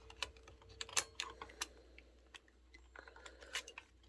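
Irregular light plastic clicks and taps from a Sony camcorder being handled while its power switch and controls are worked.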